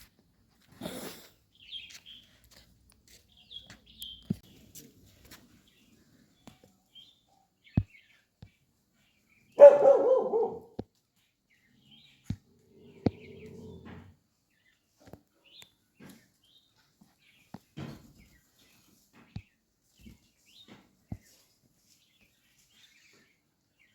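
Street dog barking once, loudly, about ten seconds in, among scattered faint clicks and knocks.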